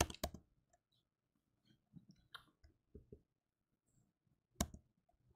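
Computer keyboard keystrokes as text is typed: a quick run of clicks at first, then a few soft scattered taps, and one sharper click a little over four and a half seconds in.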